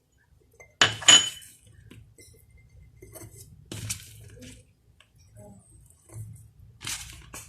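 Dried figs and garlic cloves being dropped into a glass jar, knocking and clinking against the glass. The loudest clatter comes about a second in, with further knocks near the middle and near the end.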